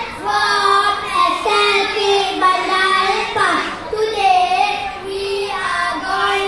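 A group of young children singing together, with long held notes that move from one pitch to the next every second or so.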